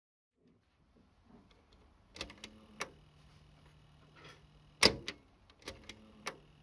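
Cassette deck of a 1983 Toshiba compact audio system: several clicks as its soft-touch transport buttons are pressed, the loudest a little before the five-second mark, and from about two seconds in a faint steady motor hum. The motor runs but nothing turns, because the drive belt has disintegrated.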